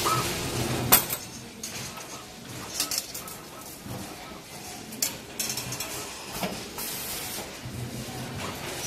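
Metallic clinks and clicks from bent steel wire and a 3D CNC wire bending machine, over a low machine hum. The sharpest click comes about a second in, with a few lighter clicks later.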